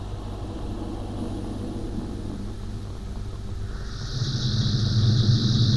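Steady low underwater rumble with a faint hum. About four seconds in it swells into a louder rush of rumble and hiss.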